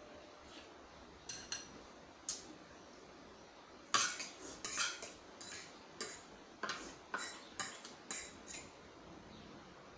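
Metal spoon and fork clinking and scraping against a ceramic plate while eating. A few separate clinks come in the first couple of seconds, then a busy run of clinks from about four seconds in until near the end.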